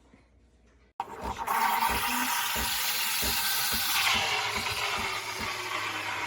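Espresso machine starting suddenly about a second in: a loud, steady hiss over a low hum, with a run of low knocks underneath.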